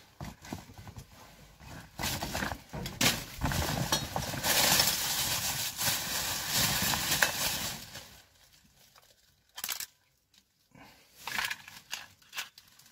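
Plastic bags crinkling and rustling as gloved hands rummage through a bag of items. The rustling is loudest from about two seconds in to about eight, then dies down to a few small knocks and rustles.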